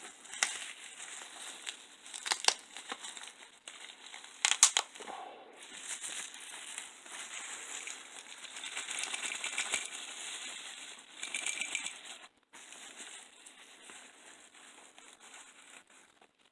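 Packaging being handled, crinkling and rustling, with a few sharp clicks and taps.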